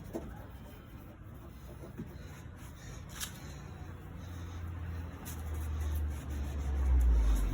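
Low engine rumble of a motor vehicle building up over the second half, its pitch dropping slightly as it gets loudest near the end.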